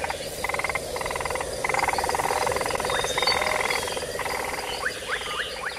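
Chorus of calling animals: rapid pulsed trills repeating in short bursts of under a second, over a steady high whine.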